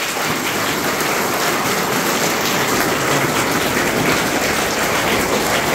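A roomful of schoolchildren applauding together: a dense, steady clapping with no let-up, given as praise for a pupil.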